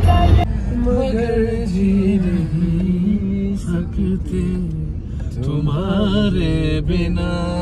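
A man singing long, wavering notes as part of a song. It cuts in half a second in, replacing a low car-cabin rumble.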